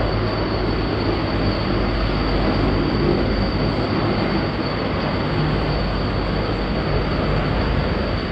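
A helicopter's rotor and turbine engine running close by: a loud, steady din with a low drone underneath.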